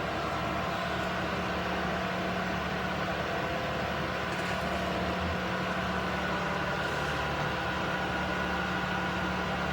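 Steady mechanical hum holding one constant pitch, with no change in level.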